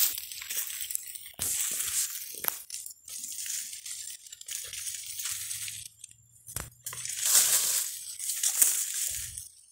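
Irregular bursts of rustling and crunching: footsteps in dry leaf litter and brush swishing past as a person pushes through dense undergrowth, with sharp snaps of twigs in between.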